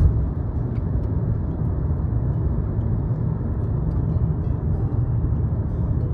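Steady low rumble of road noise inside a moving car.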